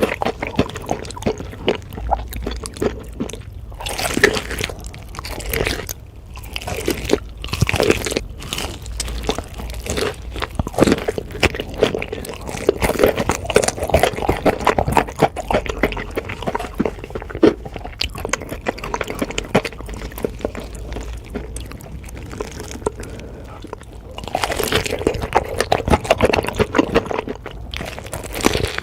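Close-miked ASMR eating: a person biting into and chewing crispy fried chicken, with dense, irregular crackling crunches throughout and louder bursts of biting now and then.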